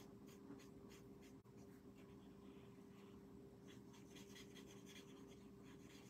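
Faint scratching of a marker tip stroking repeatedly across cardstock as a small piece is coloured in, over a low steady hum.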